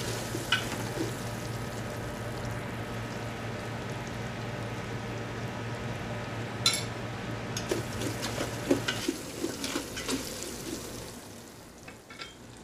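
Potato cubes frying in spiced oil in an aluminium pressure cooker, sizzling steadily while a spatula stirs them and scrapes the pot, with a sharp scrape about six and a half seconds in. The sizzle dies down over the last few seconds, leaving a few light knocks.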